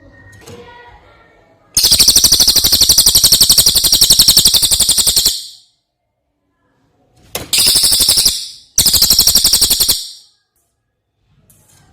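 Cililin songbird singing loud, rapid trills of evenly repeated high notes: one long trill of about three and a half seconds, then two shorter ones in quick succession.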